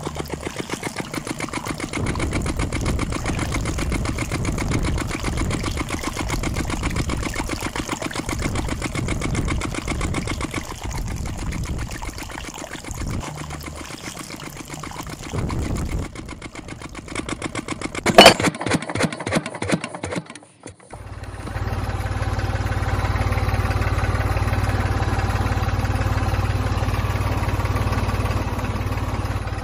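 Small motor of a homemade toy engine running a rubber-band belt drive and a model water pump, with a fast, even, rattling buzz. A sharp click comes a little past halfway, and a steadier, deeper hum takes over for the last third.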